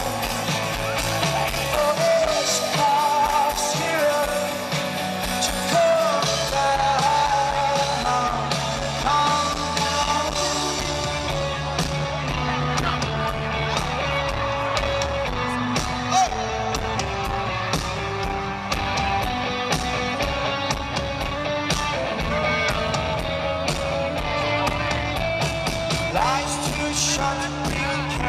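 Live rock band performing: a lead singer over electric guitar, bass and drums, heard as a loud concert mix.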